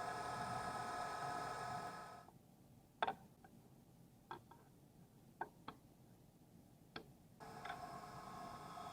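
A manual machine tool running with a steady whine that cuts out suddenly about two seconds in. A handful of sharp clicks follow in the quiet, then the running sound comes back suddenly near the end.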